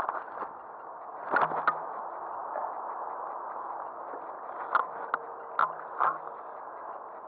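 Close handling noise of the angler's clothing and fishing gear against the microphone: sharp knocks and rubs, a pair a little over a second in and four more from about five to six seconds in, over a steady rushing background.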